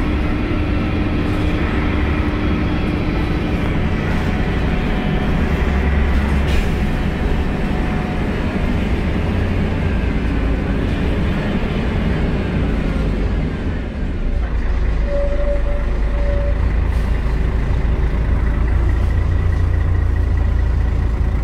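Scania L113CRL city bus running on the road, a steady low engine rumble throughout, with a short higher tone about three-quarters of the way through.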